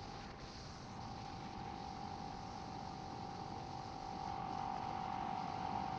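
Motorcycle underway: a steady engine hum over a hiss of wind and road noise, growing a little louder about four seconds in.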